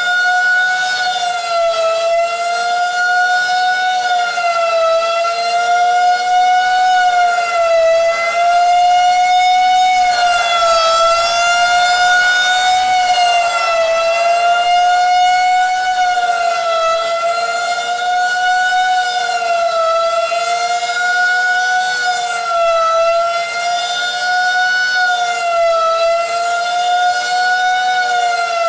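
Outdoor tornado warning siren sounding a loud, sustained steady tone for its routine first-Wednesday monthly test, the pitch wavering slightly up and down every three seconds or so.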